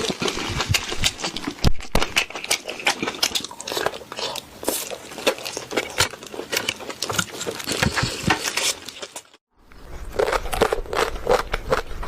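Close-miked eating sounds of spicy Korean food being eaten: a dense run of wet mouth clicks, chewing and small crunches. There is a short silent break about nine seconds in, after which the clicks go on over a faint low hum.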